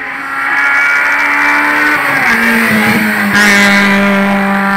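Hillclimb race car's engine at high revs, growing loud as the car approaches on the wet road. Its pitch drops in steps twice around the middle, and a hiss joins in about two-thirds through.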